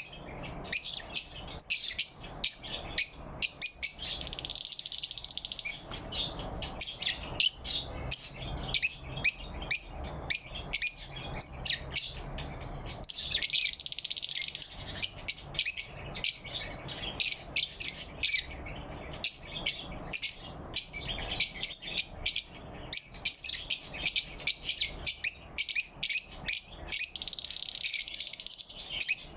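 Lovebirds chirping: a steady run of short, sharp, high chirps, thickening into denser twittering about four seconds in, around thirteen seconds and near the end.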